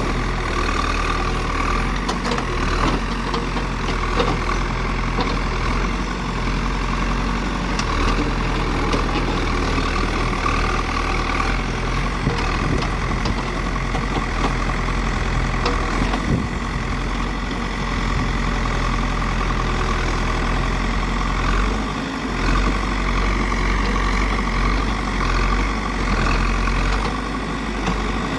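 Diesel engine of heavy road-construction machinery running steadily at a low, even pace, with a few light knocks over it.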